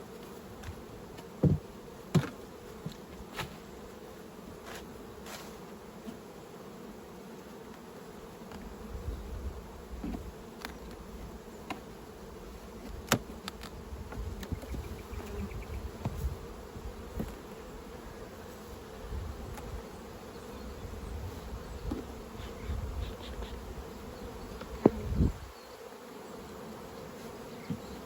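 Honey bees buzzing steadily around open beehives, with several sharp knocks of hive boxes and tools being handled, the loudest about 25 seconds in.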